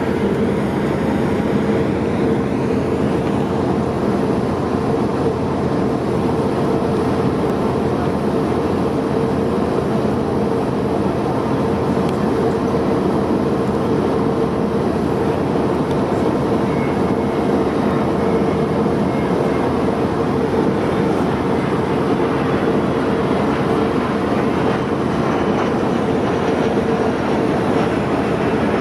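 Ship engines running: a steady mechanical drone with a constant low hum, unchanging throughout.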